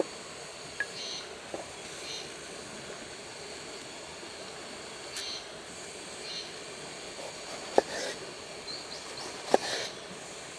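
Opinel folding knife slicing through an eggplant on a wooden cutting board: a few crisp cuts, with the blade knocking sharply on the board twice near the end. A steady outdoor background hiss runs underneath.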